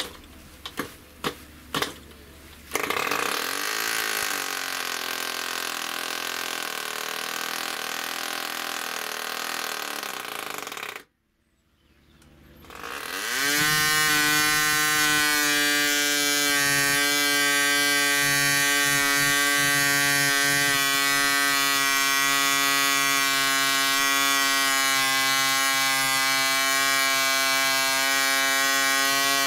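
Two-stroke model aircraft engine: a few sharp clicks as it is flicked over, then it catches and runs for several seconds before cutting off suddenly. It starts again, rising in pitch over about two seconds, and settles into a steady, high-pitched run at full speed on a 10 x 5 propeller.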